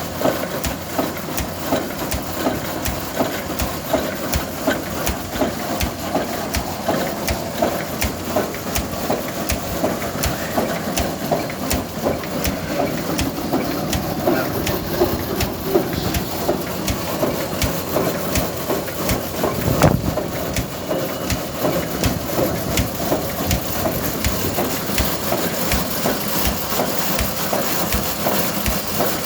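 Single-cylinder Blackstone engine of an Aveling-Blackstone road roller running with a slow, even knocking beat, and one heavier knock about twenty seconds in.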